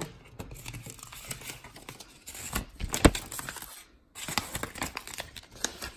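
Paper rustling and crinkling as a folded instruction booklet is handled and its pages flipped, with a few sharper snaps of paper among irregular rustles.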